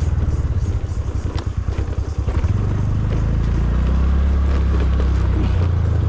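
TVS NTORQ 125 scooter's single-cylinder engine running under the rider. The note is low and pulsing unevenly for the first couple of seconds, then settles into a steady drone as it gets under way.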